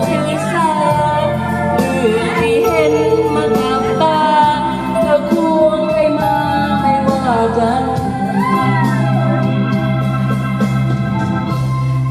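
A woman singing into a microphone over amplified backing music with held bass and keyboard-like chords.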